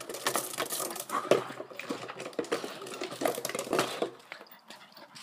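Plastic bottle clattering and scraping over stone paving slabs as a puppy chases and bats it with paws and mouth: a quick, irregular run of sharp clicks and knocks that dies down about four seconds in.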